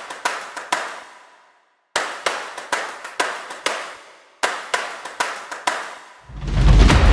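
Rhythmic hand claps, about two a second, with a ringing echo after each, cut off twice by brief silences; loud music with drums starts near the end.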